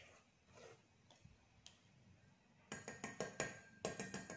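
Wire balloon whisk clinking against a stainless steel mixing bowl full of cake batter: a quick run of sharp metallic clinks, several a second, starts a little under three seconds in after a quiet stretch.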